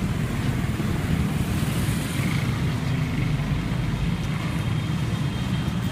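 Street traffic, a steady low rumble of motorbikes and cars going by.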